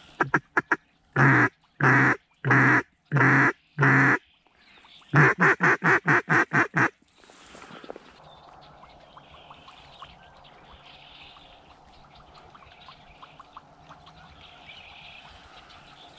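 Mallard duck call blown by a hunter to passing ducks: a few short ticks, five loud drawn-out quacks, then a quick run of about seven shorter quacks.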